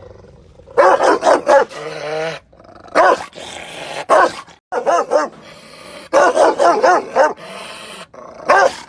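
Angry Rottweiler barking loudly in quick runs of several barks and single barks, with quieter growling between them.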